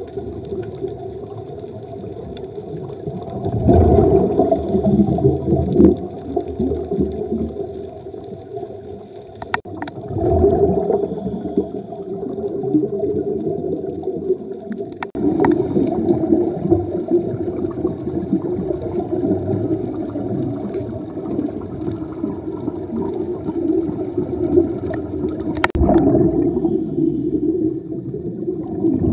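Muffled underwater sound through a camera housing: surges of bubbling from a scuba diver's exhaled breath off the regulator, with a few sharp clicks.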